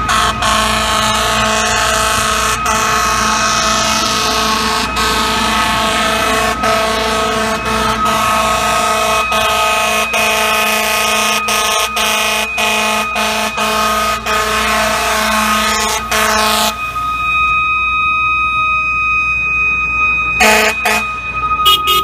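Fire truck air horn blown in one long steady blast for about seventeen seconds, cutting off suddenly, then one short blast near the end. A siren keeps sounding underneath as the ladder truck answers an emergency call through traffic.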